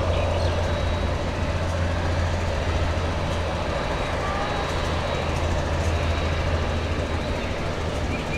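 Boeing 787-10 Dreamliner's turbofan engines at taxi power: a steady drone with a faint high whine above it.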